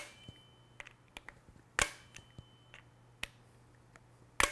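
Inch-pound torque driver with a T10 Torx bit clicking out three times as it tightens a red-dot sight's mount-base screws; each sharp click is the torque limiter breaking over, the sign that a screw has reached the set 14 inch-pounds. Fainter ticks come between the clicks.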